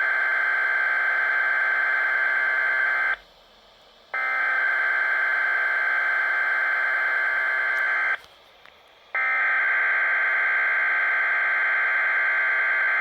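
Weather Radio Canada SAME alert header for a Required Monthly Test: three bursts of harsh, buzzy digital data tones, each about four seconds long and about a second apart.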